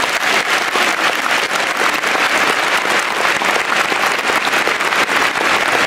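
Large stadium crowd applauding, a dense steady patter of many hands clapping.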